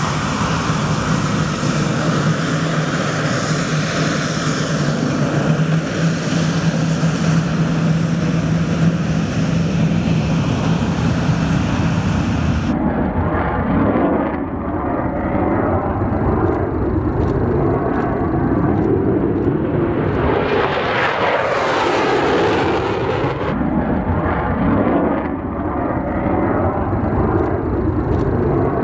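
Dassault Mirage 2000's single SNECMA M53 jet engine. First it gives a steady whine and rush as the jet taxis close by. Then comes the louder jet rumble of its takeoff, swelling to its loudest about two-thirds of the way in and easing as it climbs away.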